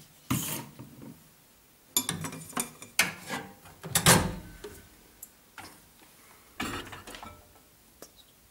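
Hands handling a ceramic mug and a small dial microwave: a string of irregular knocks, clicks and clinks a second or so apart, with quiet gaps between them.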